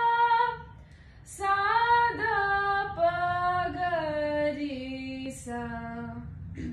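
A girl's voice singing unaccompanied vocal practice: long held notes and slides stepping down in pitch phrase by phrase, with audible breaths between phrases.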